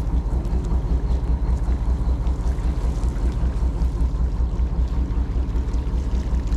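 Fishing boat's engine running steadily, a low, fast, even throb.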